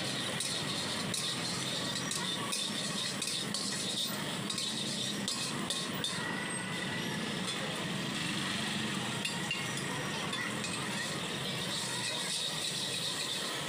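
A long metal spatula scraping and clinking irregularly against a steel wok while meat pieces fry in oil, over a steady sizzling hiss.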